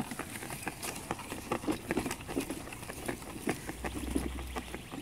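Scotts AccuGreen 3000 drop spreader being pushed across a lawn with its release open: irregular light ticking and rustling of its wheels and hopper over grass and dry leaves, mixed with footsteps.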